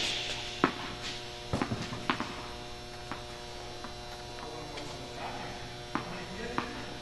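Steady electrical mains hum in an indoor tennis hall, with a few faint scattered taps from the court.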